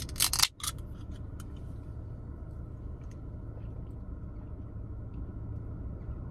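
A few loud, crisp crunches in the first half-second, close to the microphone, from chewing fried food. After them comes a steady low hum.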